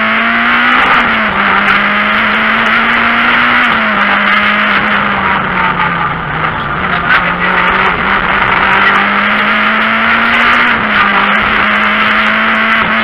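Renault Clio 3 RS rally car's 2.0-litre four-cylinder engine running at speed, heard from inside the cabin over tyre and road noise. Its note holds fairly steady, dropping and climbing again a few times, with scattered short ticks.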